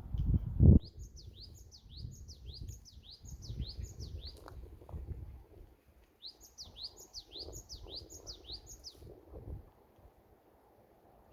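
Japanese tit (the Korean great tit, 박새) singing a lively spring song: a fast run of repeated rising-then-falling whistled notes, about two and a half a second, in two phrases with a pause between. Whether it is calling for a mate is only wondered at. A low thump sounds near the start.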